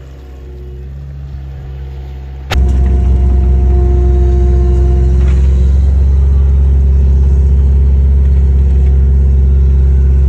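Engine running steadily with a deep low rumble, heard close up. About two and a half seconds in it jumps abruptly to a louder, steady level.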